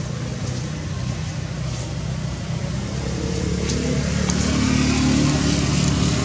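A motor engine running steadily, growing louder over the last few seconds.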